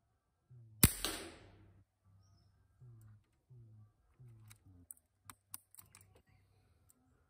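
Hatsan Flash 5.5 mm (.22) PCP air rifle firing once, a sharp crack with a short hiss fading out behind it. A few seconds later comes a quick series of metallic clicks as the side lever is worked to cock the rifle and index the next pellet.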